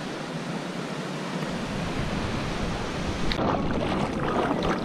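Small surf washing steadily onto a sandy beach. About three and a half seconds in it gives way to water sloshing and splashing close by as a person wades in the shallow sea.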